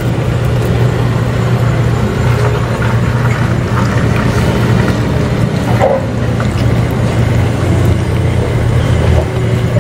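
A steady low mechanical hum, like a motor or engine running, with a few faint short clicks near the middle.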